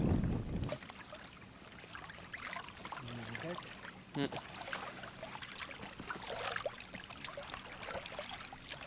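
Wind buffeting the microphone for a moment at the start, then small choppy waves lapping and splashing against the hull of a boat, with scattered light clicks and one sharper knock about four seconds in.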